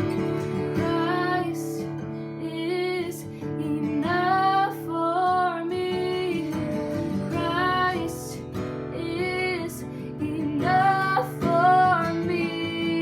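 A woman singing a slow song to strummed acoustic guitar, each sung phrase held and gliding over steady chords.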